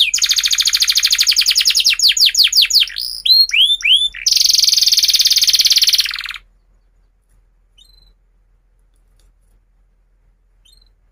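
Domestic canary singing: fast trills of repeated sweeping notes, a few slower rising-and-falling notes, then a long very fast buzzy trill that stops abruptly about six seconds in. After that only a few faint, soft chirps.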